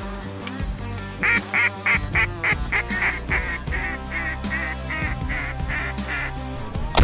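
Duck call blown by a hunter: a run of about fifteen quick quacks, about three a second, loudest at the start, over background music.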